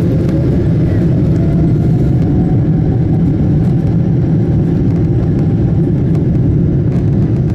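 Cabin noise inside a Boeing 777-200 taxiing: a steady, loud, low rumble of the jet engines and airframe heard from a window seat over the wing. A faint tone rises slightly over the first few seconds.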